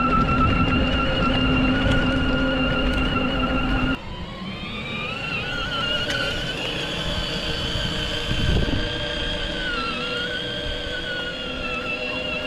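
Electric drive motors and gearboxes of a 24V four-wheel-drive ride-on toy car whining steadily as it drives. About four seconds in the level drops suddenly and a slightly higher whine carries on, wavering in pitch.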